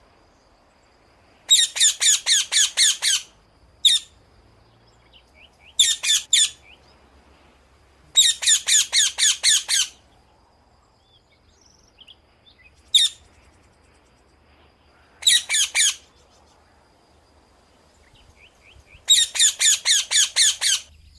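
Macaw squawking: about seven bursts of harsh, rapidly repeated calls, each lasting up to about two seconds, with pauses of a second or more between them.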